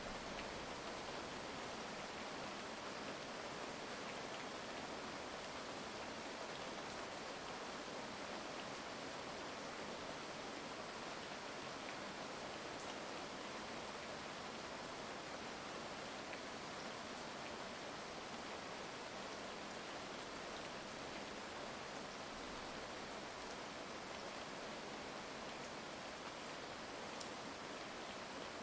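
Steady heavy rain falling, an even hiss with faint scattered drop ticks and no thunder.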